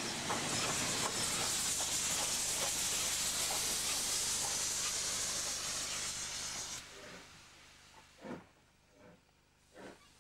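Steam hissing loudly from LNER K4 locomotive No. 3442 The Great Marquess as it passes, dropping away sharply after about six and a half seconds. A few soft thuds follow near the end.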